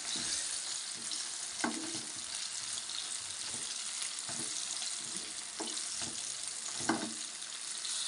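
Shredded cabbage and onion sizzling steadily in hot oil in a frying pan as they are stirred with a wooden spatula. The spatula makes a few short scrapes and knocks against the pan.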